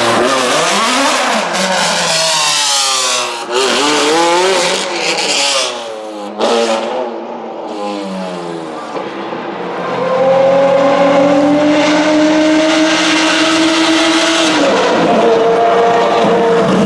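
Ferrari 458 Challenge's flat-plane V8 through a loud custom exhaust, revved up and down repeatedly for several seconds, then after a brief drop held at a steadier note that climbs slowly and steps down a little near the end.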